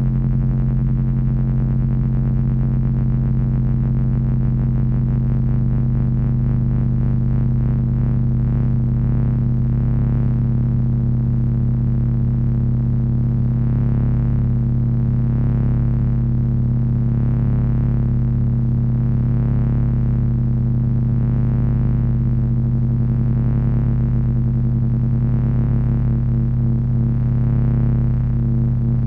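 Heavy electronic drone noise from three Frequency Analyzer v1 units driven by an HP 200C audio oscillator: two strong low tones held steady over a low rumble, with a fast pulsing beat in the higher overtones that slowly shifts as the phases drift.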